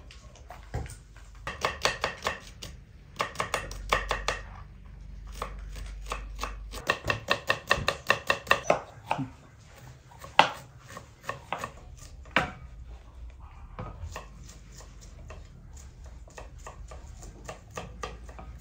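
Knife chopping food on a cutting board in quick runs of strokes, about six a second, with short pauses between runs and scattered single knocks later on.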